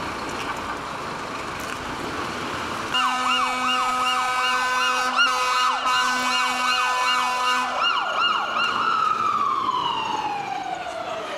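Street noise at first, then about three seconds in a fire engine's electronic siren starts up in a fast yelp over a steady tone. A few seconds before the end the yelp and the tone stop, and the siren slides down in one long, slow falling wail.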